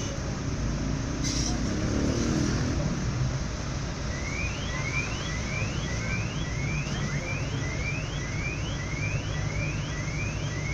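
Steady low rumble of a vehicle or traffic. From about four seconds in, a short high chirp that rises in pitch repeats evenly, about one and a half times a second, like an electronic alarm or warning tone.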